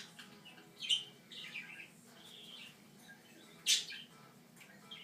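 Pet parrots chirping: a few short chirps, then one louder, sharp call about three-quarters of the way through.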